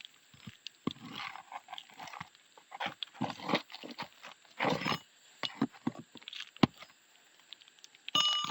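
Roof shingles being pried loose and handled: irregular scraping, cracking and knocking, with a few sharp knocks.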